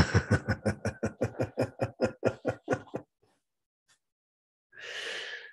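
A man laughing: a run of quick ha-ha pulses, about five a second, for roughly three seconds, then a breathy noise near the end.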